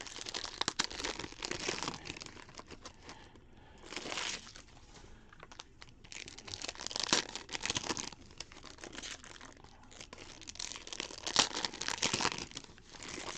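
Foil trading-card pack wrappers being crinkled and torn open by hand, in several bouts of crackling with quieter gaps between.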